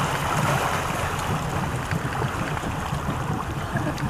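Stingray 195LR's 4.3-litre MPI V6 sterndrive engine running as the boat slows, with water rushing along the hull and wind on the microphone. The rushing and wind ease off about a second in.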